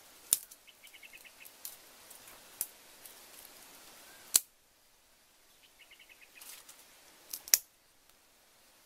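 Sharp, scattered snaps and clicks of small sticks being cut and broken by hand, the loudest about half a second in, past the middle and near the end. A bird twitters in short rapid runs about a second in and again around six seconds.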